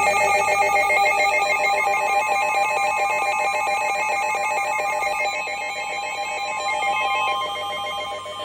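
Electronic emergency alert tone: several steady pitches pulsing very fast in a trilling, bell-like warble, slowly getting quieter.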